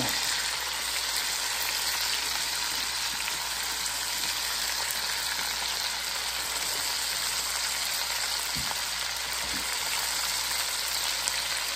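Onions, celery, carrots and garlic sizzling steadily in a hot red enameled Dutch oven, an even high hiss. Two faint low thuds come about two-thirds of the way through.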